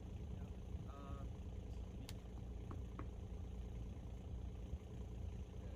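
Bobcat E26 mini excavator's diesel engine idling with a steady low hum. A few sharp clicks come about two to three seconds in.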